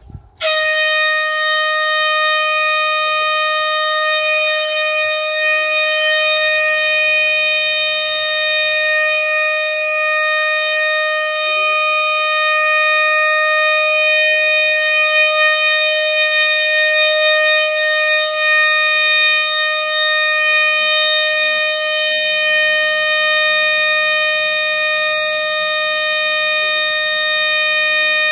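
Civil defense siren sounding one steady, unwavering tone that starts suddenly about half a second in: the alarm sounded across Poland at W-hour to commemorate the Warsaw Uprising.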